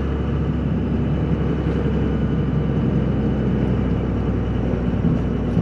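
Cummins diesel pickup engine running steadily as the truck drives, a constant low drone with road noise.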